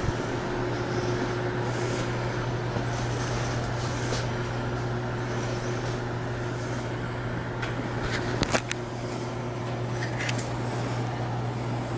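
Steady low electrical hum with a fainter higher tone over it, and a few light clicks about eight and a half seconds in.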